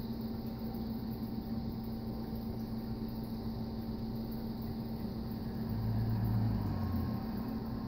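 Steady mechanical hum. A deeper low hum swells in near the end and fades after about a second.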